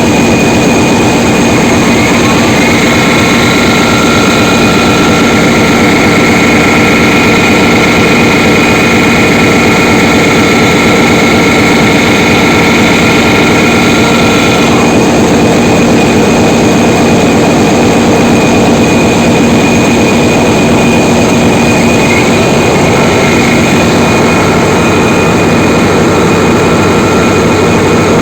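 Loud, steady machinery din around a Wärtsilä 18V50SG gas engine, an 18-cylinder V engine, while its turning gear is engaged. A thin steady whine runs over it, drops out about halfway through and comes back near the end.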